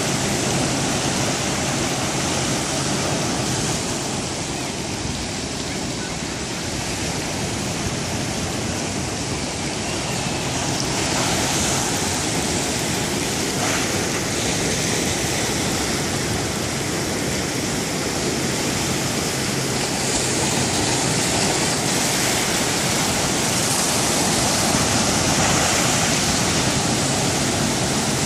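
Ocean surf breaking over a flat rock shelf and washing off its edge, a continuous splashing rush that swells now and then as bigger waves come in.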